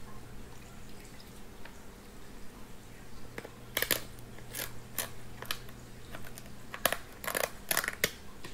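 Kitchen shears snipping through the inside of a crab's top shell, a run of about ten sharp cracking snips starting a few seconds in.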